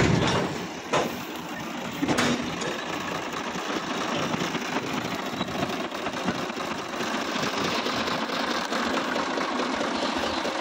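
Diesel engine of a Sonalika DI-745 III tractor running steadily at idle with a fast, even rattle. A few sharp knocks sound in the first two seconds.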